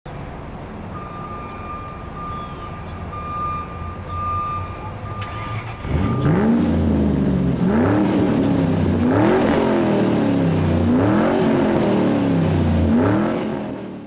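Car engine idling, then revving hard about six seconds in and accelerating up through the gears, its pitch climbing and dropping back with each of several shifts before it fades out near the end.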